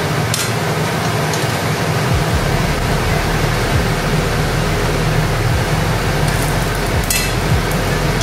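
Green banana kofta balls frying in oil in a pan: a steady sizzling hiss over a low hum, with two short clicks, one just after the start and one near the end.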